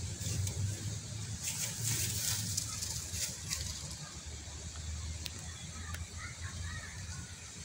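Rustling and crackling in long grass and dry leaves, heaviest from about one and a half to three and a half seconds in, over a steady low rumble.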